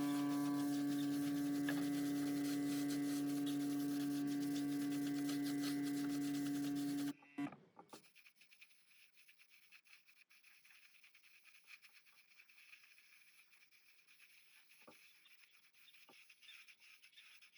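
A small electric motor runs with a steady hum, then cuts off suddenly about seven seconds in, leaving a faint hiss with a few light clicks.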